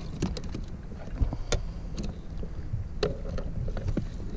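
Scattered light clicks and knocks from a caught fish and a metal stringer clip being handled in a plastic crate on an inflatable kayak, over a low rumble of wind on the microphone.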